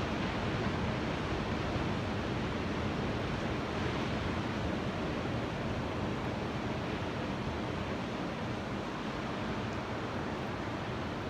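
Ocean surf: a steady wash of breaking waves with no distinct crashes, easing a little toward the end.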